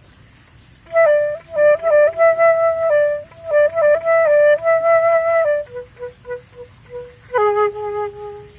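Flute played in a slow improvised melody. A run of short stepped notes starts about a second in, then come a few short, soft notes, and near the end a longer held lower note.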